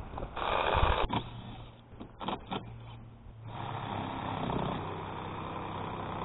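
A shovel scraping into sandy soil near the start, a few knocks, then a small cordless drill motor running steadily for about three seconds before stopping suddenly.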